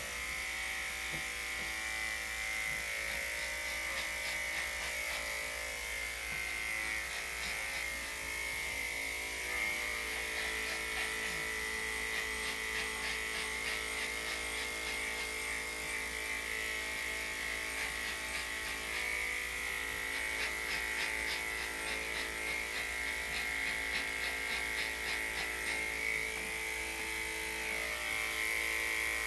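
Electric dog grooming clippers with a #5 blade running steadily through a dog's coat: a constant electric hum, with stretches of fine rapid ticking near the middle and again later.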